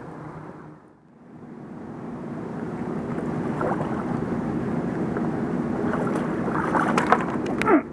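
A steady low motor drone with a rushing noise over it, dipping about a second in and then swelling gradually over several seconds. A few small clicks come near the end.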